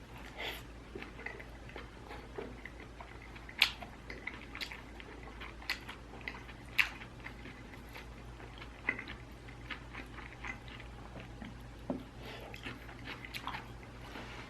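Close-miked chewing and biting: scattered wet smacks and clicks as a mouthful of stir-fried food and noodles is eaten.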